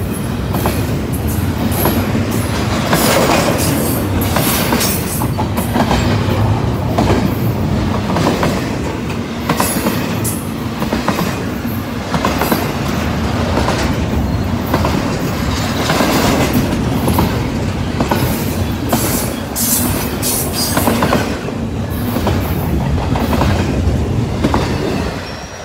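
Double-stack intermodal well cars of a freight train rolling past at close range: a steady rumble of steel wheels on rail, with uneven clicking and clatter from the wheels and cars. The noise falls off right at the end.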